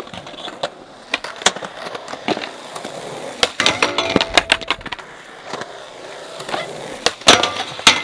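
Skateboard rolling on concrete with sharp clacks of the board, then grinding along a round steel rail with a ringing, pitched metal scrape about halfway in, and loud board impacts near the end.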